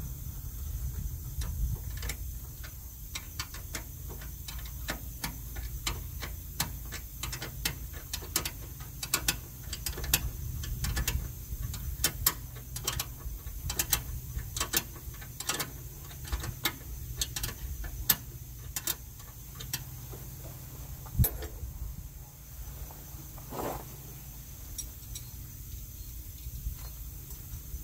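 Hand tools clicking and clinking on metal as bolts are worked on a semi truck's cab suspension. The clicks come in irregular runs, thickest in the middle, over a steady low hum.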